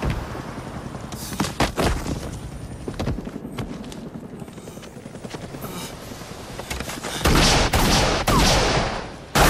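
Film sound effects of gunfire: a few sharp single shots about a second in, then a loud sustained burst of automatic fire from about seven seconds in. Car noise runs underneath between the shots.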